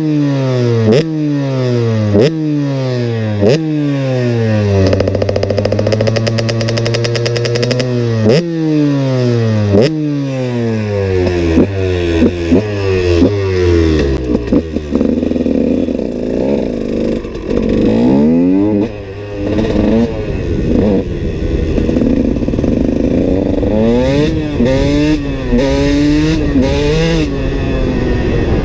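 KTM SX 125 two-stroke single-cylinder motocross engine revving. For the first half it gives about a dozen sharp throttle blips, the revs falling away slowly after each. After that it runs at higher revs with the throttle wavering up and down.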